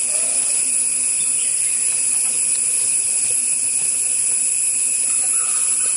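Steady high-pitched drone of a forest insect chorus, even and unbroken throughout.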